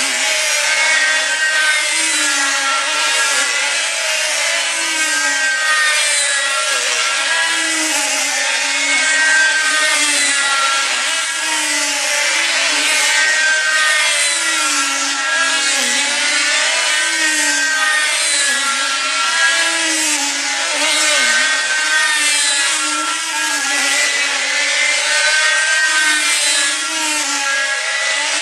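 Several control-line combat model aircraft, each with a small diesel engine, running together at full throttle: overlapping engine tones that rise and fall in pitch about every two seconds as the planes circle the pilots.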